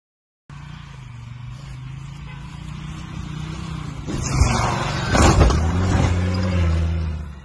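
Jeep Grand Cherokee engine revving under load, wheels spinning as it claws up a steep grassy slope, growing slowly louder. A loud rush of noise joins about four seconds in.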